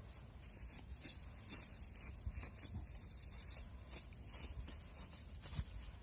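Footsteps creaking and crunching in snow, one short scrape after another at walking pace.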